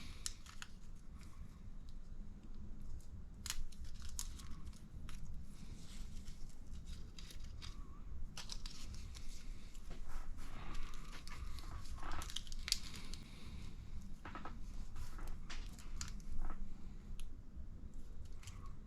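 Plastic parts bags crinkling and being opened by hand, with scattered clicks of small plastic shock parts being handled.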